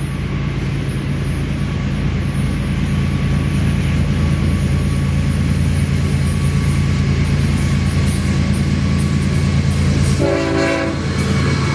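Train running with a steady low diesel rumble, and a short train horn blast near the end.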